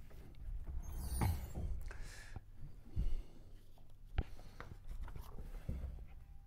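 Handling noises from a person at a whiteboard: a marker writing on the board, footsteps, rustling, a low knock about three seconds in and a sharp click a second later.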